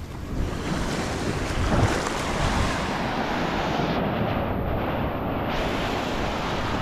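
Small waves breaking and washing over the shallows, with wind buffeting the microphone.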